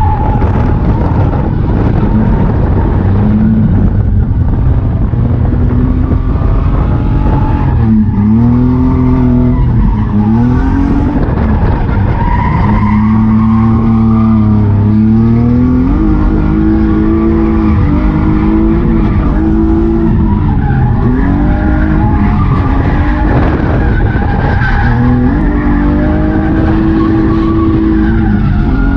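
A BMW M50B25 2.5-litre straight-six with a blast-pipe exhaust, revving hard through a drift: the engine pitch drops and climbs again over and over and holds high between the dips. Tyres skid and squeal under it.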